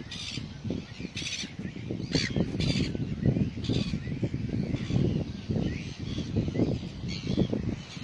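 Gulls calling, short harsh squawks coming about once a second, over a low, uneven rumble.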